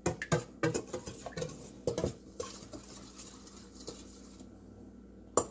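Metal spoon stirring an olive oil and spice mixture in a stainless steel mixing bowl, clinking and scraping against the sides for the first couple of seconds, then stirring more softly. A few sharp clinks come near the end.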